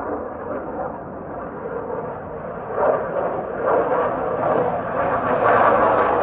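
Recorded F-16 fighter jet flyby: rushing jet engine noise that grows louder from about three seconds in as the jet closes.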